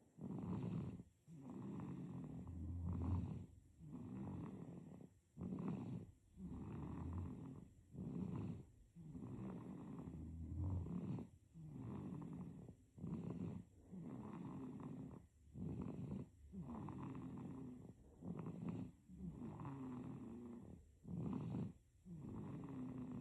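Baby snoring in sleep: a steady, even rhythm of snoring breaths in and out.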